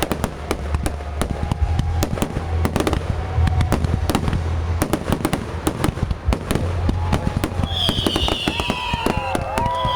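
An aerial fireworks display: rapid, dense crackling and banging over a low rumble of booms. Several whistling tones glide up and down in the second half.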